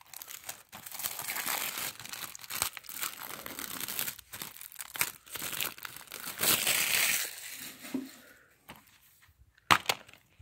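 Plastic shrink wrap on a DVD case being torn and peeled off, crinkling and crackling for several seconds. Near the end come a few sharp clicks as the plastic DVD case is snapped open.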